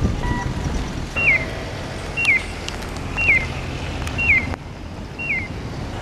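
Electronic pedestrian crossing signal chirping about once a second, each chirp a short falling tone, over a steady low rush of wind and street noise.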